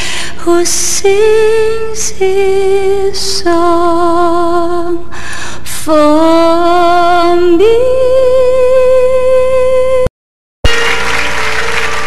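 Theme-song vocalizing: a woman's voice singing wordlessly in long held notes with vibrato, sliding between pitches. The sound cuts out for half a second about ten seconds in, then the music comes back in.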